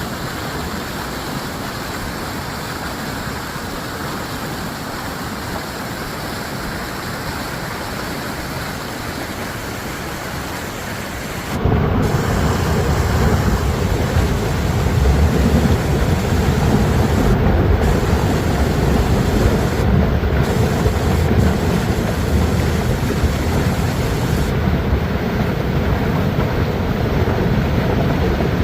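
Floodwater rushing down a wadi in a flash flood, a steady roaring wash of noise. About twelve seconds in it suddenly grows louder, with a deeper rumble that then holds.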